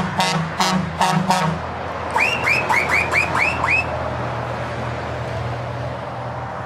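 Heavy truck's horn sounding in a string of about five short blasts, then six quick rising whistle-like chirps. After that comes the steady drone of the truck's engine and tyres on the road.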